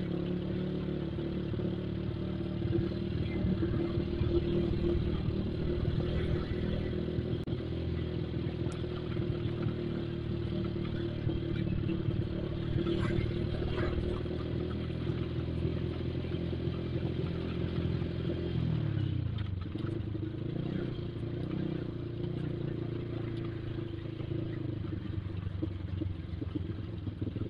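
Motorcycle engine running steadily under way, heard from on board. About two-thirds of the way through, the revs drop away and then pick up again.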